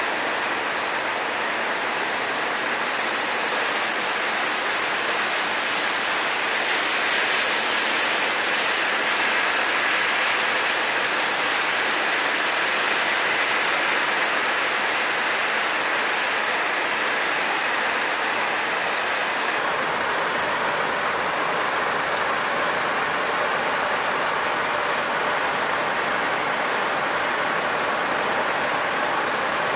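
Steady rain falling, an even hiss, turning slightly duller about two-thirds of the way through.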